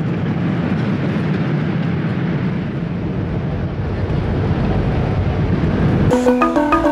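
Steady jet airliner cabin noise, heard from inside the cabin with the plane on the ground. Music comes in about six seconds in.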